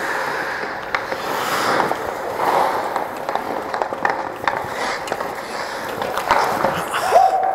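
Ice hockey skate blades scraping and carving on rink ice, with sharp clacks of sticks and puck during play around the net. Near the end comes a held shout.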